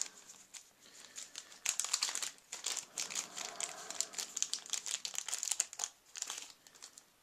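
Irregular crinkling and rustling of packaging being handled as a replacement toy-car motor is taken out of its wrapping. It stops near the end.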